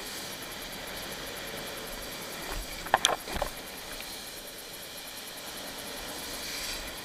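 Steady rush of wind and water spray on a helmet camera while wakeboarding behind a boat, with a cluster of sharp knocks about three seconds in.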